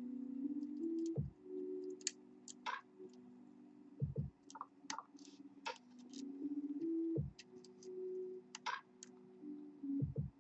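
Soft background music with a slow, stepping melody, over light clicks and ticks of a hook pick and tension wrench working the pins of a pin-tumbler lock, and a low thump about every three seconds.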